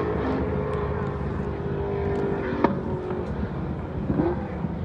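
Vauxhall Firenza V8 rally car's engine running hard under load, its steady note fading after about three seconds. A single sharp crack comes just before the note fades.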